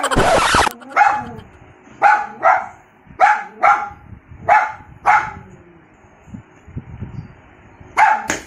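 Small Pomeranian puppy yapping: about eight short, high barks, mostly in quick pairs, with a pause before a last one near the end. A brief loud rushing burst comes at the very start.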